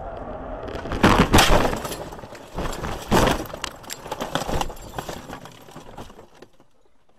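A car running off the road and crashing into roadside brush, heard from inside the cabin: a heavy impact about a second in and another about three seconds in, then branches and grass crackling and scraping over the body and windshield, dying away as the car comes to rest.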